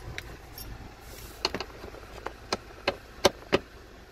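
A run of sharp clicks and knocks from a car's plastic dashboard trim being worked on by hand. It starts about a second and a half in, and the two loudest knocks come near the end.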